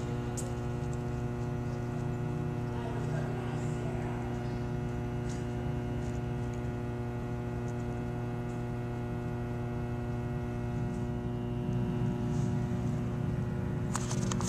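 Steady electrical mains hum: one unchanging low drone with a ladder of even overtones, with a few faint ticks. Near the end, rustling and knocks of the camera being handled.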